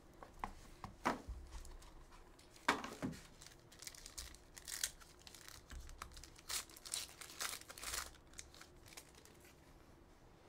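A Court Kings trading-card box being opened and a foil card pack torn open by hand: short bursts of tearing and crinkling wrapper, the loudest about three seconds in, fading out near the end.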